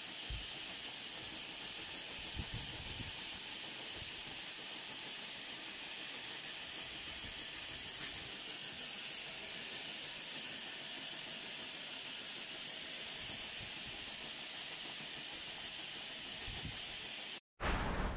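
Grain running by gravity out of a grain silo: a steady, even hiss that stops abruptly near the end.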